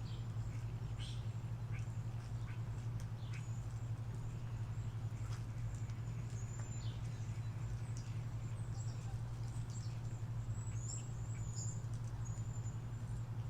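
Small birds chirping, short high calls repeated on and off, many of them in the second half, over a steady low hum.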